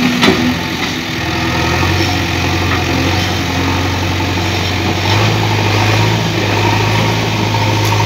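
Backhoe loader's diesel engine running steadily, growing louder and deeper about five seconds in. A single sharp knock comes just after the start.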